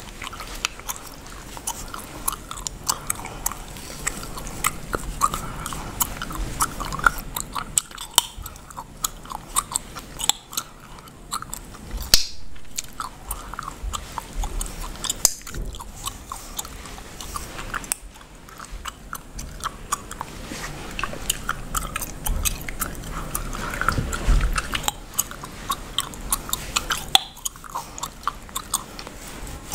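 Bubblegum chewed and cracked close to the microphone: many sharp, irregular snaps over wet chewing, the loudest snap about twelve seconds in.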